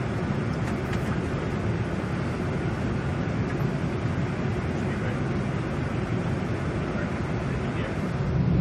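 Steady rumble and airflow noise on a Boeing 747-400's flight deck, from the engines and the air rushing past, with no sharp events.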